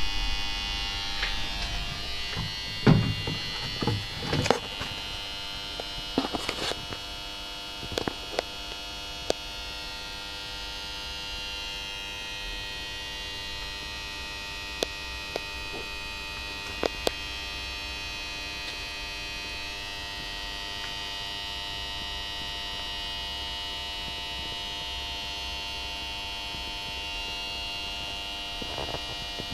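Steady electrical hum with several high whining tones held throughout. A cluster of knocks and rubs in the first five seconds or so, the loudest about three seconds in, then a few single clicks.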